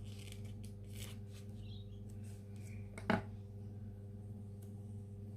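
Light scratching and clicking of paper planner stickers being handled and placed on a planner page, with one sharp click about three seconds in, over a steady low electrical hum.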